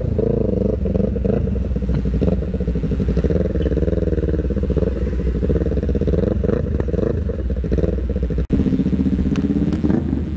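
Motorcycle engine running under way, its revs rising and falling. The sound breaks off for an instant about eight and a half seconds in.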